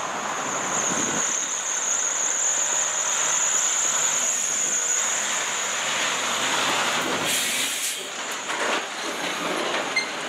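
Traffic driving close past: an RV, then a semi-truck pulling a large open-top debris trailer, with a steady high-pitched whine over the road noise and a short hiss about seven seconds in.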